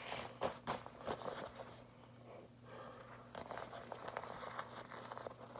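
Faint rustling and small clicks of an M17 gas mask's cloth hood being handled and pulled into place, with its drawstrings adjusted. The handling is busiest in the first second and a half, eases off, then picks up again more softly.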